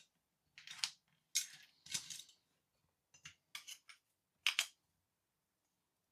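Small metal and plastic parts of a diecast model car clinking and rattling as they are handled on a workbench during disassembly: a string of short, sharp clinks at uneven intervals, the loudest about four and a half seconds in.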